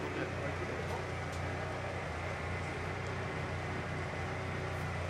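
Steady low mechanical hum with a faint high steady tone above it.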